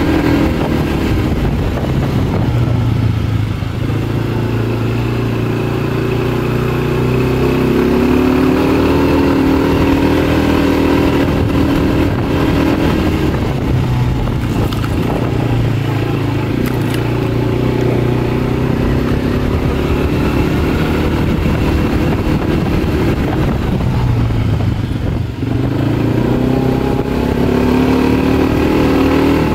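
Kymco MXU 250 quad's single-cylinder four-stroke engine running under load while being ridden, its pitch rising and falling with the throttle. It eases off briefly about four seconds in, again around thirteen seconds and again around twenty-five seconds, then picks back up.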